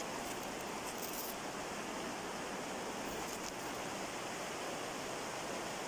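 Steady, even hiss of background noise with no pitch or rhythm, unchanged throughout.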